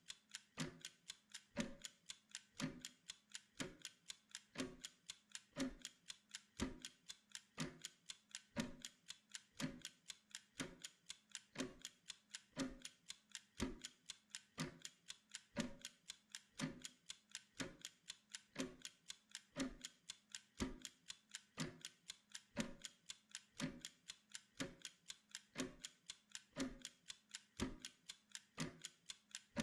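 Steady clock-like ticking of a study timer, about two ticks a second in an even tick-tock, with heavier and lighter strokes alternating.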